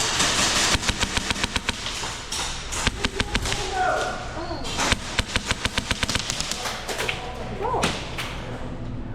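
Airsoft guns firing full-auto bursts: fast, evenly spaced shots in several runs of about a second or two with short pauses between.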